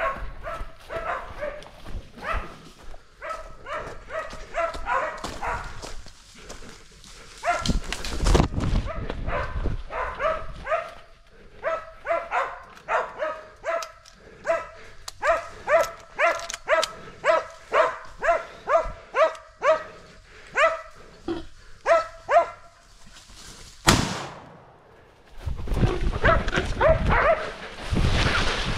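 Pig-hunting dogs barking over and over, about two barks a second, while working a pig. About four seconds before the end comes a single sharp crack, followed by a loud noisy scuffle.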